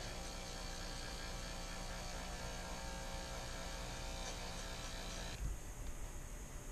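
Corded electric hair clippers with a number-two guard buzzing steadily while trimming hair, switched off suddenly about five seconds in.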